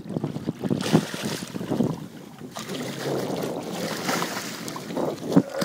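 Water splashing as a hooked bull redfish thrashes at the surface beside the boat, in uneven bursts over a steady rush of wind and water.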